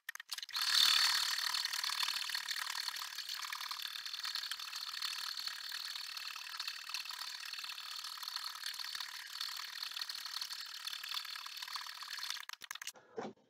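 Husqvarna Viking Designer Topaz 50 embroidery machine stitching lettering into nylon dog-collar webbing: a fast, steady clatter of the needle mechanism that starts about half a second in and stops abruptly near the end.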